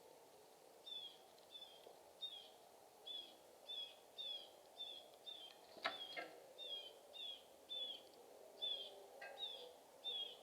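A bird singing a short, falling whistled note over and over, about twice a second, with a single sharp click about six seconds in.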